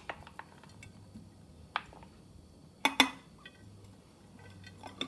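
Scattered light clinks and taps on a large glass jar as chopped red onion is added to it; the two loudest come close together about three seconds in.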